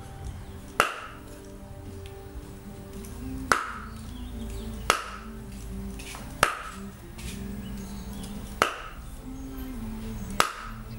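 Knife chopping down onto a wooden chopping board, cutting raw meat into pieces: six sharp strokes spaced a second or two apart, each with a brief ring.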